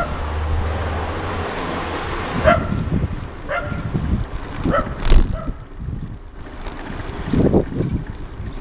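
Wind buffeting the microphone of a camera riding along on a bicycle, with a few short high squeaks spaced irregularly and a sharp knock about five seconds in.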